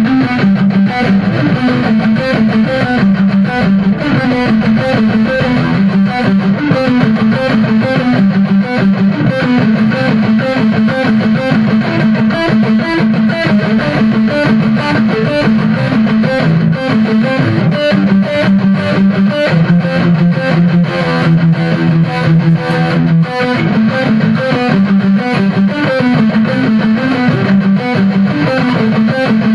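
Electric guitar playing a quick picked riff that repeats, with a few longer held notes about twenty seconds in.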